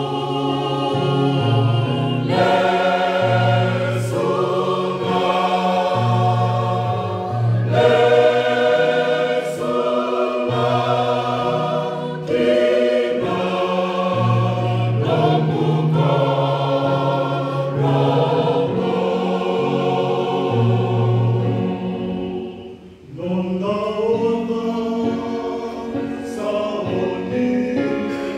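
Mixed church choir of men's and women's voices singing a hymn in parts, with held notes and a low bass line; a brief break a few seconds before the end, then the singing picks up again.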